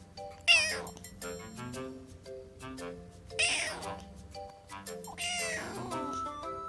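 A young kitten mewing three times, high-pitched wavering cries spaced a couple of seconds apart, over background music.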